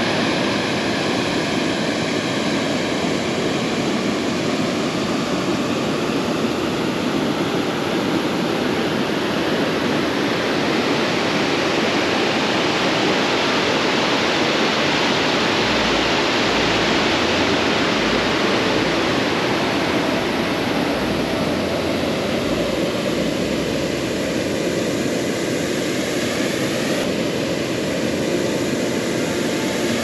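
Wapta Falls on the Kicking Horse River: a large, partly frozen waterfall pouring into a river pool, heard as a loud, steady rush of falling water.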